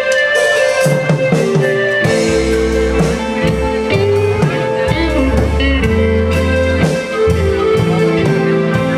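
Live band playing, with electric guitar over bass, drums and keyboard.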